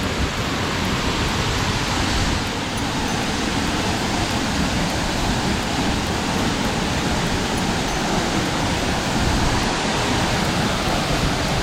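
Steady roar of a large waterfall, an even rush of falling water with no break.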